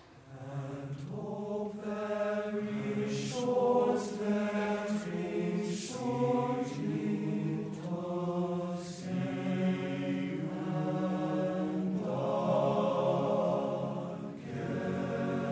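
Background music: choral chanting, held notes changing about once a second over a steady low drone.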